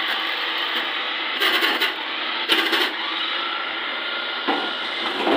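Electric food processor running, its motor whirring steadily as it shreds carrots pushed down the feed tube. Louder rasping stretches come twice, about one and a half and two and a half seconds in, with a sharp knock at the second.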